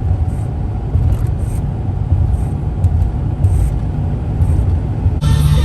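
A steady low rumbling noise with no clear source, then music starts suddenly near the end.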